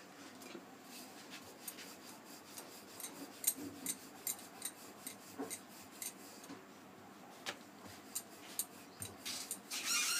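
Wooden rolling pin rolling out a stuffed paratha on a round board: a soft rubbing with a scatter of light clicks and taps as the pin rocks on the dough and knocks the board, busier near the end.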